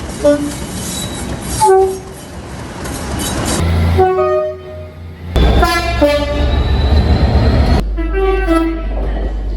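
A series of short train horn blasts over the rumble of a train, about seven toots in all, from several clips cut together so the background changes abruptly every few seconds.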